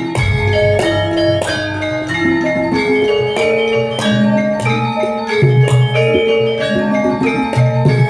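Javanese gamelan ensemble playing a lancaran in the pelog scale: bronze metallophones and gongs striking a melody of ringing tones over low sustained gong notes.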